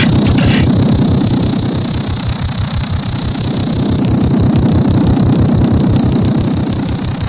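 Harsh power electronics noise music: a loud, steady high-pitched whine over a dense, rapidly pulsing low rumble.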